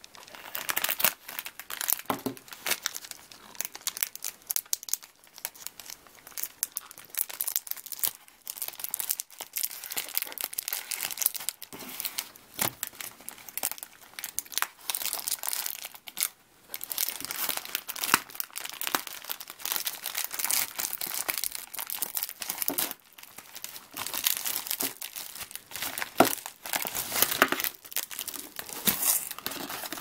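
Plastic mailer bag being cut open with scissors and its plastic inner wrapping pulled out by hand: continuous, irregular crinkling and rustling of plastic, with sharp crackles and some tearing.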